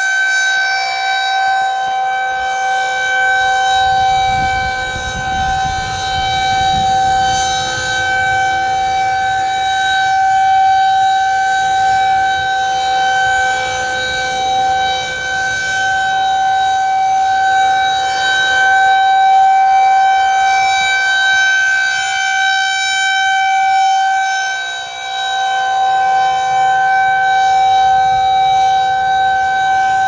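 Tornado warning siren sounding a continuous wail, held at one steady pitch, its loudness swelling and fading slightly.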